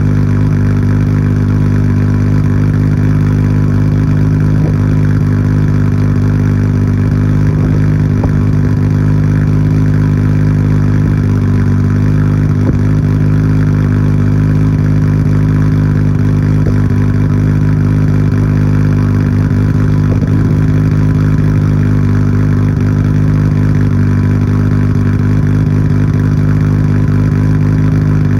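Nissan Skyline GT-R R34's RB26DETT twin-turbo straight-six idling steadily while warming up after a cold start. It exhausts through a Tomei Expreme Ti titanium muffler with its bolt-in silencer insert fitted.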